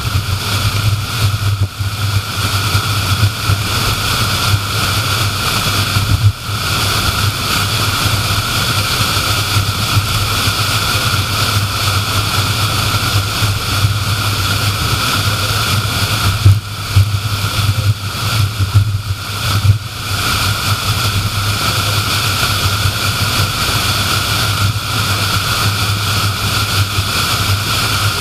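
Steady road noise of a car driving at speed: tyre roar over a low engine hum, dipping briefly a few times.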